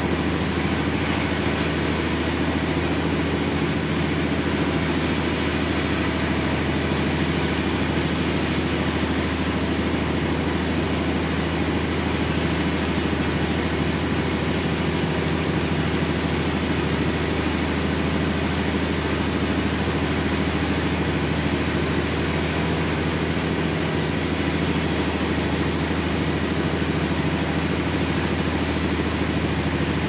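Sawmill running with a steady, unchanging engine drone.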